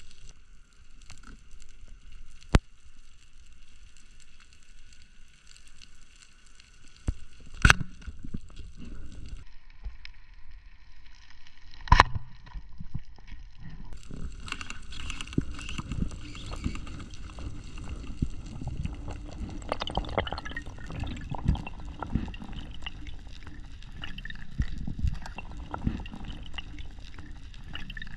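Underwater sound picked up by a diving camera: faint crackling with a few sharp clicks, the loudest about eight and twelve seconds in. From about halfway on, a denser low rush and gurgle of water as the freediver swims up from the seabed.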